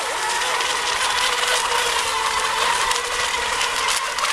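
Electric ECO Expert class RC racing boats running at speed on the water: a steady high motor whine over a constant hiss.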